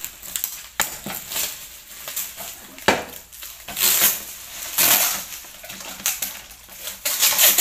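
Stack of nested white plastic plant pots being handled and laid down, with irregular rustling of plastic packaging and scattered knocks of hard plastic, the sharpest about three seconds in.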